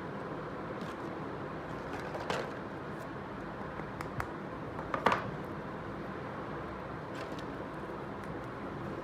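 A few light clicks and taps of small miniature toy kitchen pieces being handled, the loudest about five seconds in, over a steady background hiss.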